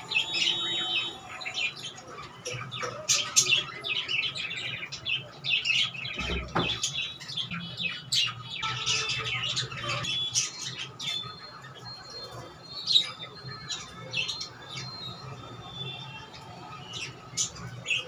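Budgerigars chattering: a busy run of quick, short chirps and warbles, densest in the first half and thinning out later. A low thud about six seconds in.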